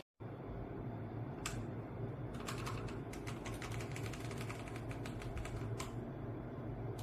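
Keys clicking on a ZIYOU K3 mechanical keyboard with red linear switches, typed in scattered strokes with a denser run in the middle. A steady low hum runs underneath.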